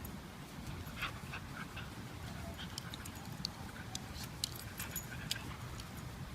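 Faint dog sounds, with scattered small clicks and a few brief high squeaks over a low steady background hiss.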